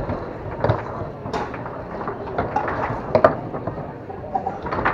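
Tornado foosball table in play: the ball knocking off the plastic men and the table walls, with the rods clacking, as a few sharp, irregular knocks. The loudest knock comes about three seconds in.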